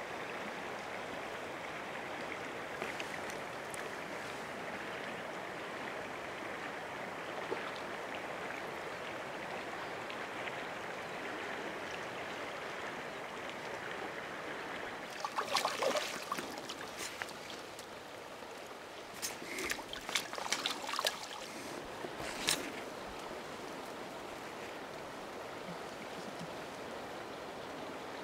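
Steady rush of a flowing stream, broken about halfway through by a burst of splashing and then a run of sharp splashes a few seconds later, as a hooked fish thrashes at the surface.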